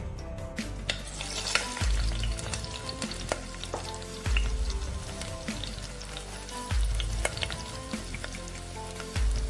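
Peeled baby potatoes sizzling as they are tipped into hot oil in a nonstick kadai, the fizzing rising from about a second in, then stirred with a wooden spatula. Background music with a regular low beat plays throughout.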